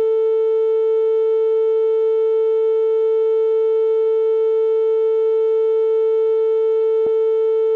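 A steady synthesized tone, sold as an ear-unclogging frequency, held at one pitch without change, with fainter overtones above it. There is a faint click about seven seconds in.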